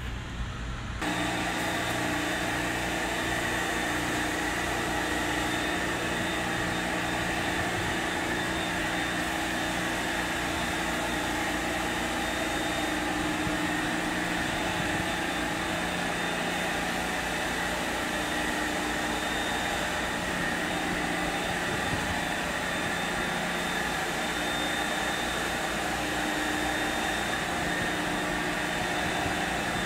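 Hot-water carpet extractor running, its vacuum sucking steadily through the floor wand as the wand is drawn across the rug: a constant rush of air with a steady whine, starting about a second in.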